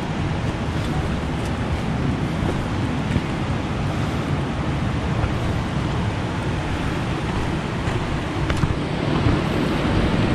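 Wind buffeting the microphone: a steady, rumbling rush that swells and dips, with a few faint clicks.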